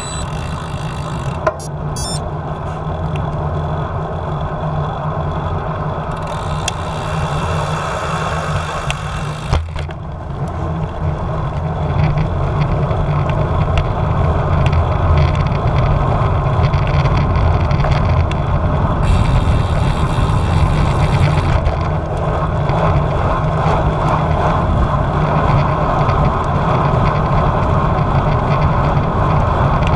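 Wind rushing over an action camera's microphone on a moving road bike, a steady low rumble that gets louder about twelve seconds in.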